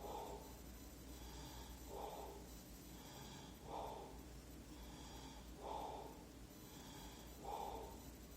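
A person breathing noisily and rhythmically, about one breath every two seconds, each breath in a short rasping rush, with fainter sounds in between.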